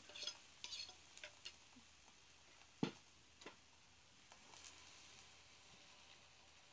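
Faint clicks and one sharper knock about three seconds in, from a fork, a metal bowl and a frying pan being handled on a portable gas stove, over a faint sizzle of pancake batter cooking in the pan.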